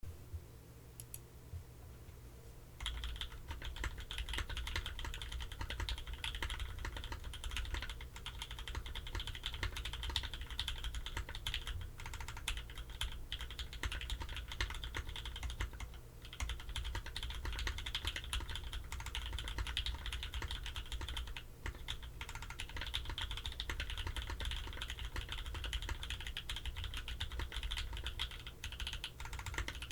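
Typing on a Hive60 mechanical keyboard with a carbon fiber plate, plate foam and lubed Pewter switches under GMK keycaps: a fast, steady stream of keystrokes that starts about three seconds in, broken by a few brief pauses.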